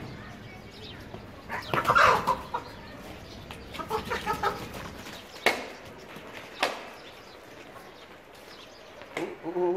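Farm animals calling: a loud call about two seconds in, a run of short calls around four seconds, and another short call near the end, with two sharp knocks in between.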